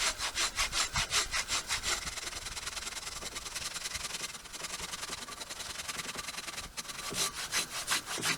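Silky Big Boy 2000 folding handsaw with its curved professional blade cutting through a large downed log: rapid rasping back-and-forth strokes, about five a second, quicker and softer in the middle and louder again near the end.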